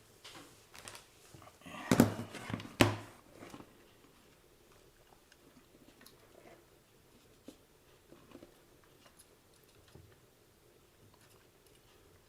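Clicks and knocks of hands handling an opened plastic RC transmitter and a hot glue gun. A flurry of them in the first few seconds, with two sharper knocks about two and three seconds in, then faint scattered ticks.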